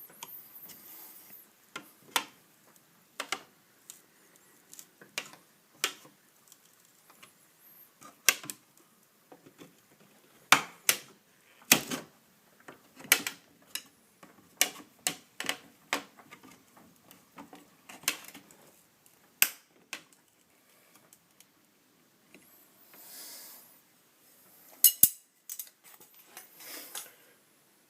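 Steel putty knife and pry tool clicking, tapping and scraping against a painted wood glass stop as it is pried loose from a door's glass opening, in irregular sharp taps with short scraping passages in the latter part.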